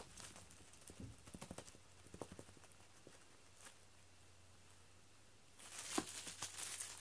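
Cat teaser toy being jiggled on the floor: faint scattered light taps about a second in, then quiet, then a stretch of rustling and tapping near the end.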